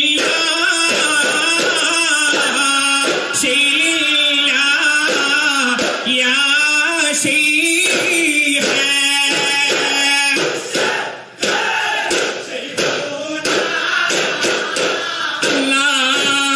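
Male voices singing a Duffmuttu song in chorus, with strokes on hand-held daff frame drums keeping the rhythm. The sound dips briefly about eleven seconds in, then the singing and drumming carry on.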